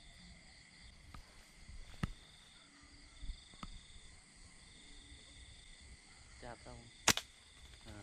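Night insects shrilling steadily, with chirping pulses that come and go, broken by a few sharp clicks; the loudest is a double click about seven seconds in.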